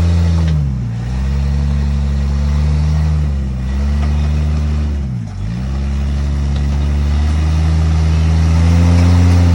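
Rock crawler buggy's engine held at high revs under load, its pitch dipping briefly and recovering about three times as the throttle is worked.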